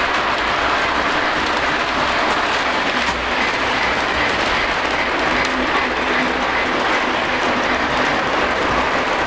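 Lionel O-gauge model trains running on Fastrack, making a steady rolling noise of wheels and motors on the track.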